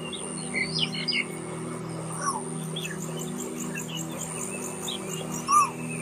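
Small songbirds chirping and twittering, with a fast high trill in the middle and a louder short whistled note near the end, over a soft steady music drone.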